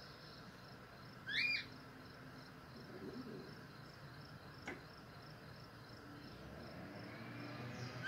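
Cockatiel giving one loud, short, rising whistled call about a second and a half in, over a faint, evenly repeating high chirring; a single sharp click comes near the five-second mark.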